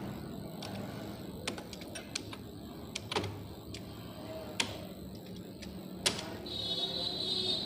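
A few sharp clicks of computer keys being typed, over a steady background hiss. A faint high whine sets in near the end.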